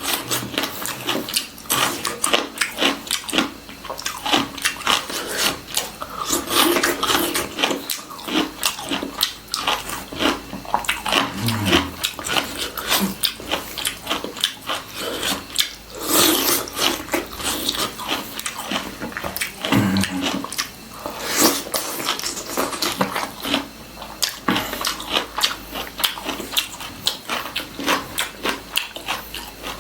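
Close-miked chewing and eating sounds: a steady stream of wet mouth clicks, smacks and crackles as a Tripuri meal with bamboo-shoot curry is eaten.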